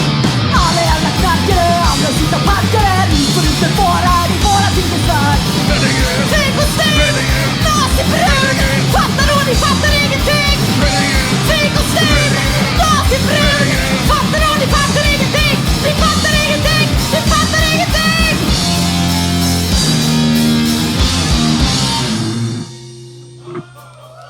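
Punk rock band playing live, fast and loud with drums, bass and distorted guitar. The band stops abruptly near the end, leaving a low bass note ringing.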